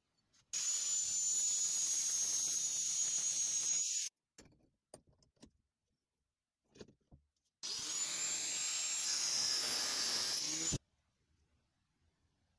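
Angle grinder cutting through a steel tube held in a bench vise: two runs of about three seconds each, a high steady whine over grinding noise, with a few light knocks of metal being handled between them.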